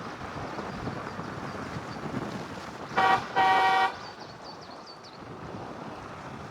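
A vehicle horn honks twice about three seconds in, a short toot then a longer one, over steady road and wind noise.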